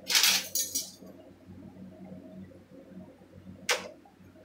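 Seasoned salt container being handled and shaken, giving a rattling swish of about a second at the start and a brief sharp one near the end, over a faint steady low hum.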